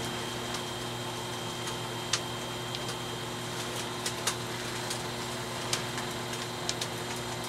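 Skutt Prodigy electric potter's wheel running at a steady speed, a constant motor hum, with a few faint sharp clicks.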